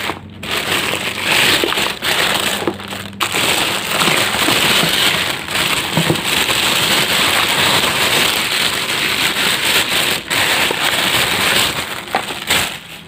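Packaging rustling and crinkling loudly as products are pulled out of a parcel by hand, in a dense run of crackles with a few short breaks.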